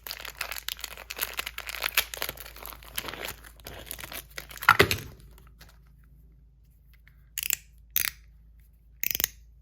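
Packaging crinkling and tearing as it is unwrapped, with a louder rip about five seconds in. A few short, sharp clicks follow near the end.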